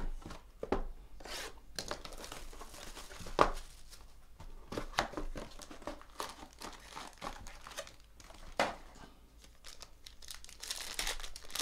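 Plastic shrink-wrap torn off a sealed baseball card box, then the box lid and cards handled, and the crinkling of the foil-wrapped pack near the end. Irregular, crackly tearing and rustling.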